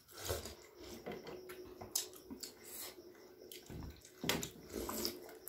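Quiet eating sounds: wet slurping from a plastic spoon, with scattered small clicks and a few soft knocks, over a faint steady hum.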